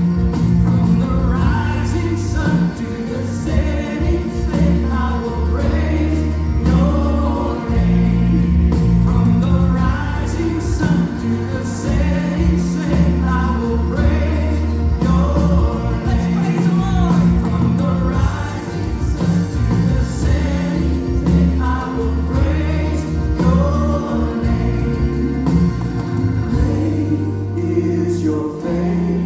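Gospel praise music: a choir singing with band accompaniment over a steady deep bass.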